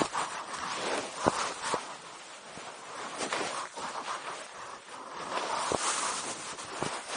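Rustling and scuffing handling noise with a few sharp clicks, about a second in and near the end.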